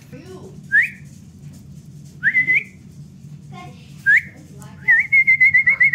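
A person whistling to call a puppy's attention: three short rising whistles, then a longer warbling trill near the end.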